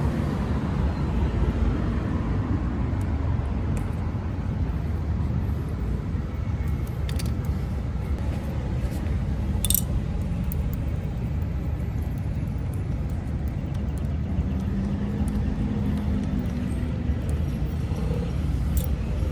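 Steady low rumble of road traffic, with a few small clicks, the sharpest about ten seconds in.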